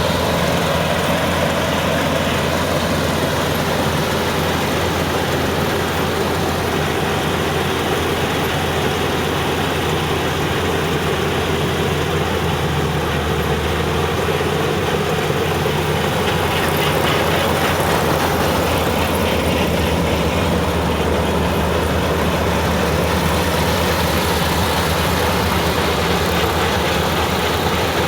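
Engine of a Kubota farm machine running steadily at a constant speed, with a low, even hum.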